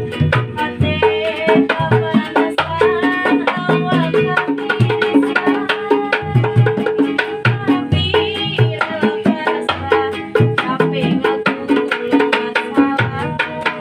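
Instrumental music with hand drums playing a quick, steady beat under a pitched melody instrument.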